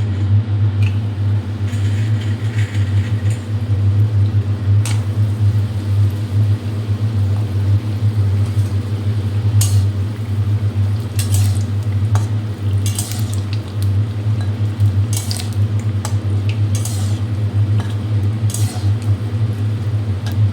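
Bori (sun-dried lentil dumplings) frying in hot oil in a kadai, with a metal spatula clinking and scraping against the pan now and then. A steady low hum runs underneath.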